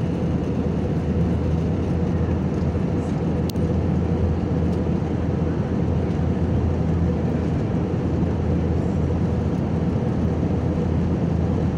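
Steady rush of jet engine and airflow noise inside an airliner cabin at cruise, with a low, even hum underneath. There is a single brief click about three and a half seconds in.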